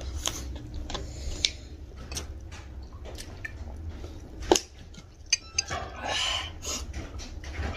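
Eating by hand from plates and bowls: fingers working rice and curry, with scattered clinks and knocks of dishes and a sharp knock about four and a half seconds in, plus chewing.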